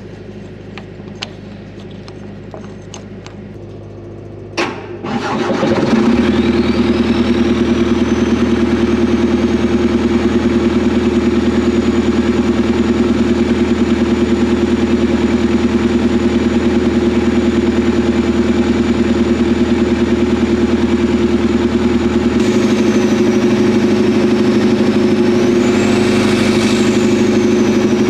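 Hitachi Zaxis 280 excavator's diesel engine starting about five seconds in, after a few clicks and a knock, then running steadily. A high whine rises as it comes up to speed and levels off, then dips and climbs again near the end.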